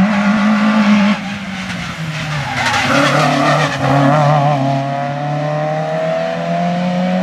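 Rally car engine at high revs, lifting off about a second in, then a brief tyre squeal through a corner and the engine pulling away with rising revs.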